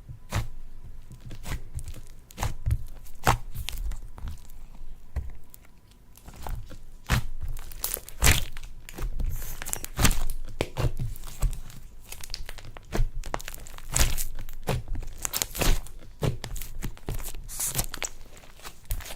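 Slime being squished, stretched and folded by hand, giving off irregular sticky clicks and pops with soft low squelches beneath.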